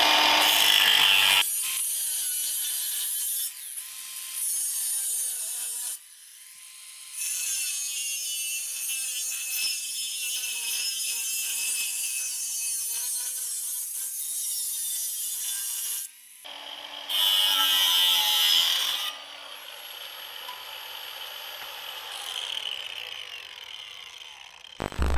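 Cordless Milwaukee angle grinder with a cut-off wheel cutting into the steel mounting bracket of a tube bumper. The motor whine dips and rises in pitch as the wheel bites under load, in several stretches broken by short pauses at about six and sixteen seconds.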